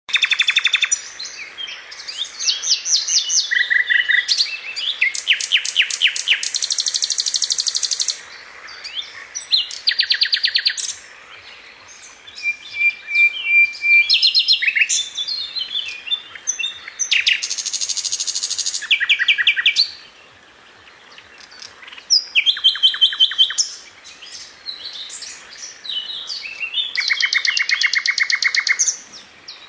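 Songbird singing varied phrases of rapid repeated notes and trills, each phrase a second or two long with short pauses between them.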